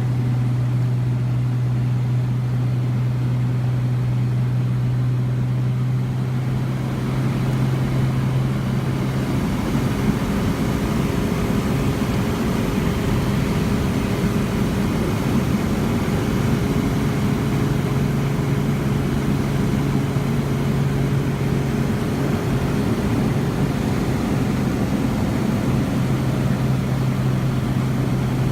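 Cabin noise of a single-engine Cessna 207 in flight: the piston engine and propeller drone steadily under rushing air. About a third of the way in, the air rush grows brighter and the drone's pitch shifts for several seconds, then settles back to a steady drone.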